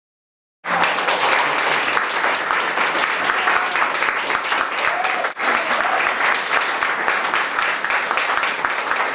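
Audience applauding: many hands clapping at once, starting abruptly under a second in after dead silence, and continuing steadily with a brief dip about five seconds in.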